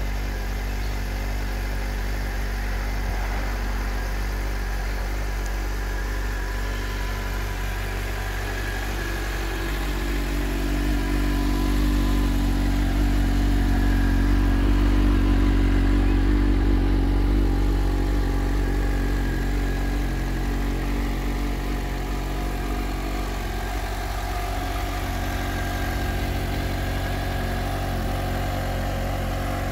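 2021 Suzuki GSX-S750's inline-four engine idling steadily through its stock exhaust. The pitch stays constant throughout. The sound grows louder and fuller for several seconds in the middle.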